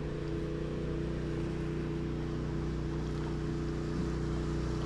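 A motor running steadily at a constant pitch, with an even rushing hiss over it.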